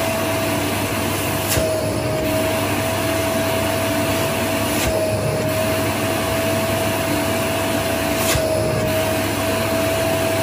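A household vacuum cleaner runs steadily with a high whine while its nozzle is drawn up and down over the leg muscles as suction massage. The whine's pitch dips slightly about every three seconds.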